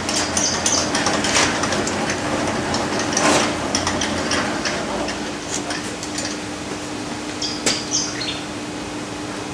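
Workshop room tone: a steady hum with scattered light rustles and clicks, and a few short high squeaks near the end.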